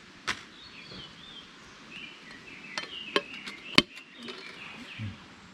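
Aluminium frying-pan lid of a Mini Trangia set being placed on the aluminium pot, giving a few sharp metallic clicks and clinks, the loudest just before the end. Birds chirp faintly in the background.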